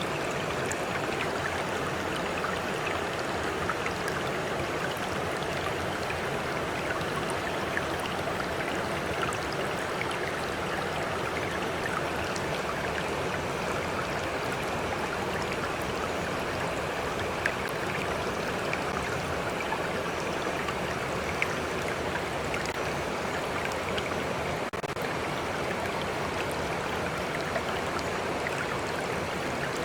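Steady rush and lapping of a flowing stream, with a few brief louder splashes.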